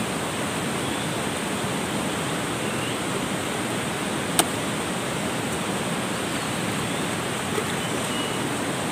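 Steady rush of flowing river water, with a single sharp click about four and a half seconds in.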